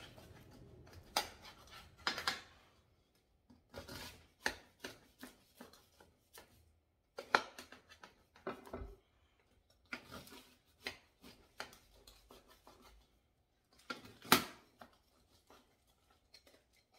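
A knife cutting through the crisp, flaky crust of a baked zelnik (layered cheese pita), which crackles and crunches in irregular bursts with short gaps, a few cracks sharper than the rest.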